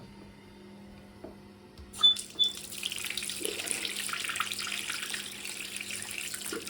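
Two short squeaks, then a bath tap's water gushing out in a steady rush. The tap won't shut off because its washer has failed.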